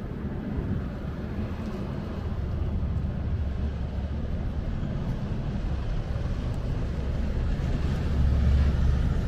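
Fast riverboat on the river: a steady low engine rumble that grows louder near the end as it comes closer.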